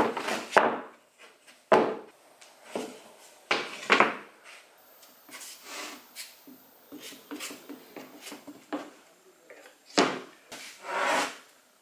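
Birch plywood rings knocked against a wooden workbench, a few sharp knocks in the first four seconds. Then a run of short scraping strokes as wood glue is spread over a ring with a plastic spreader, and two louder brush strokes near the end.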